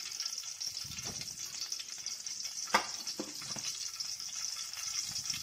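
Oil heating in an aluminium kadai, sizzling with a steady high hiss as it comes up to temperature for tempering. A single sharp click about halfway through.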